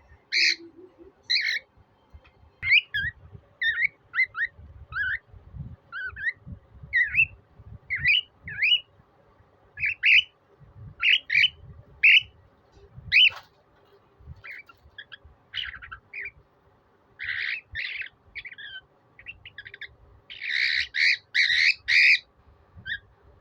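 Cockatiel calling: a long run of short, rising chirped whistles, about one or two a second, ending in a louder, tightly packed burst of calls near the end.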